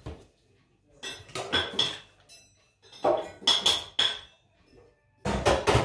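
Kitchen containers and utensils clattering as they are handled: three bursts of knocks and clinks with a little ringing, a couple of seconds apart.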